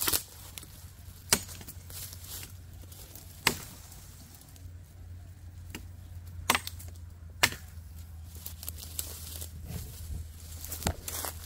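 A large L6-steel chopping knife (KRM Bamboo, 10-inch) hacking into green saplings and branches: sharp chops at irregular gaps of one to three seconds.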